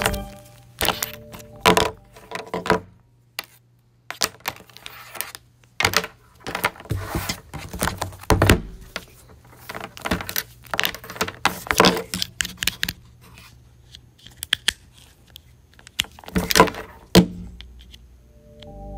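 Charging cables and plastic plugs rattling, rustling and clicking in irregular bursts as they are untangled and plugged into a table's power outlets, over a faint low hum.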